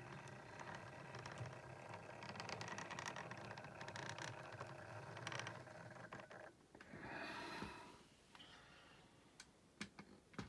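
Faint whirr of a Bachmann 00 gauge Class 57 model locomotive's motor and gears as it runs slowly along the track, with light clicks throughout. A short burst of hiss comes about seven seconds in, and after it the sound is quieter.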